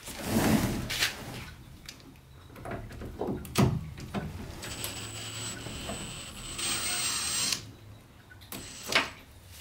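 A cordless drill-driver with a T20 Torx bit runs for about three seconds, undoing a small screw, with a steady high whine that stops suddenly. A few knocks and clicks of handled parts come before and after it.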